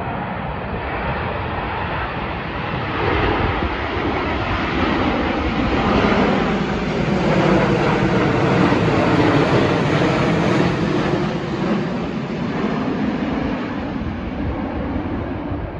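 Twin-engine widebody jet airliner flying low overhead on landing approach: a steady jet rumble that swells to its loudest about six to eleven seconds in, with a tone falling in pitch as it passes, then eases off. Wind buffets the microphone underneath.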